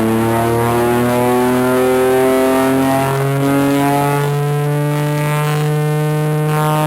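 Chrysler air raid siren, driven by its Hemi 331 Firepower V8, winding up: its loud wail climbs in pitch for about three seconds, then holds steady.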